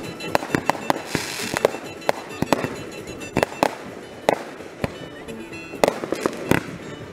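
Aerial firework shells bursting: irregular sharp bangs, about one or two a second, with a short hissing crackle about a second in.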